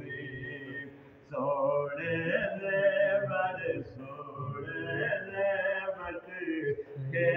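A man singing a Punjabi devotional naat in a chanting, melodic style. The voice fades briefly about a second in, then comes back strongly and carries on.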